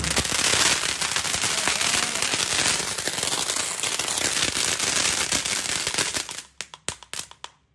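Firework fountain spraying sparks: a loud, continuous hiss thick with crackles, which thins out into a few separate pops near the end.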